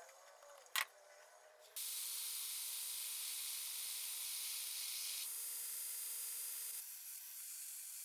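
A single sharp click about a second in, then from about two seconds a steady high hiss of a belt grinder grinding a wrought iron knife guard, which drops to a softer hiss near the end.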